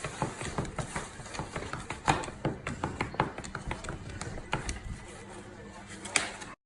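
A rapid, irregular series of small clicks and taps.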